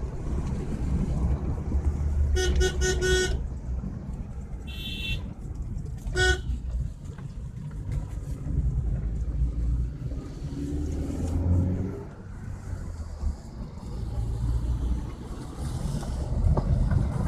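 Car driving on a hill road, with the engine, tyres and wind making a steady low rumble heard from inside the cabin. A car horn sounds in a quick run of toots about two seconds in, and once more briefly about six seconds in.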